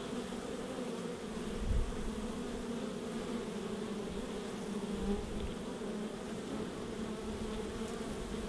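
Many honey bees humming at a hive entrance, a steady drone. A brief low thump comes about two seconds in.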